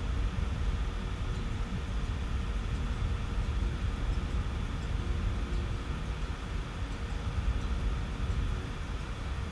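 Excavator's diesel engine running steadily: a low, even drone with a faint constant hum, without hammer blows.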